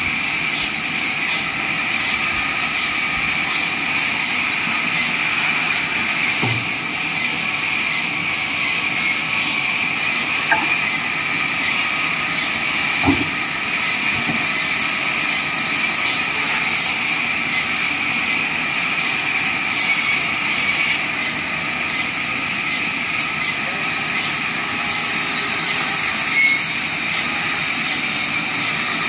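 Vertical band sawmill running steadily while wooden blocks are hand-fed through its blade: a continuous high whine and hiss with a faint regular ticking. Two brief wooden knocks sound, near a quarter and near half of the way through.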